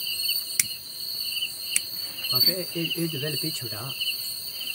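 Crickets chirping steadily, with two sharp clicks of a plastic lighter being struck, about half a second and just under two seconds in. A low voice murmurs in the second half.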